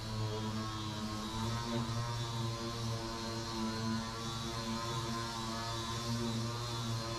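Orbital sander running steadily as it sands body filler on a car's quarter panel: an even hum with several fixed pitches.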